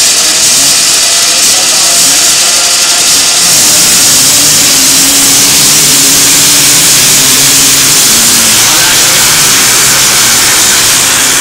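A pack of three-wheeled ATC racers' engines revving hard as they pull away from the start and through the first turns, several engine notes overlapping and rising and falling over a loud hiss.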